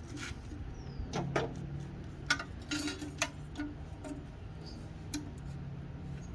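Scattered light clicks and taps of small parts and hand tools being handled, irregular and a few to the second, over a low steady hum.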